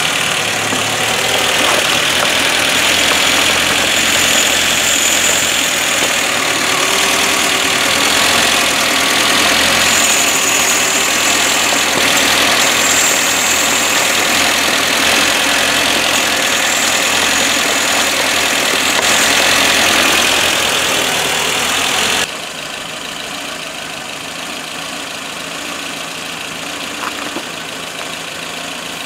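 Car engine idling, with a loud steady hiss over it that cuts off suddenly about 22 seconds in, after which the engine runs on more quietly.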